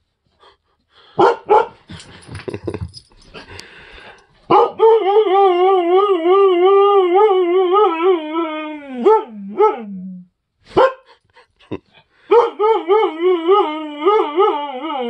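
Husky howling: a long wavering howl of about four seconds with a quick warble in its pitch, sliding down as it ends, then a second like it starting near the end. A few short sharp sounds come before the first howl.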